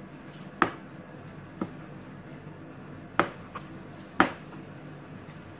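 Kitchen knife slicing through mushrooms and knocking on a plastic cutting board: five sharp knocks at uneven intervals, three of them louder.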